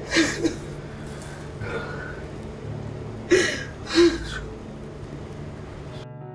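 A woman sobbing, with a few sharp gasping breaths over a low steady drone. Soft piano music starts near the end.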